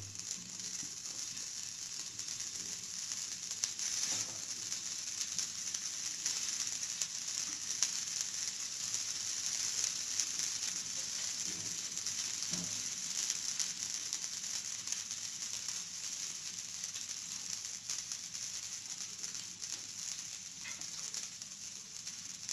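Poha and potato tikkis shallow-frying in a little oil on a nonstick tawa: a steady sizzle, with a few soft knocks.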